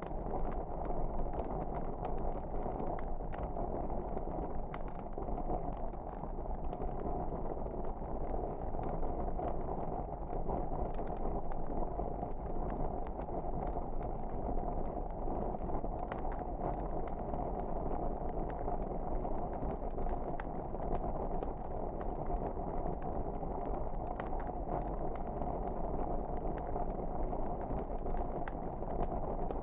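Log fire burning: a steady low rush with scattered small crackles and pops.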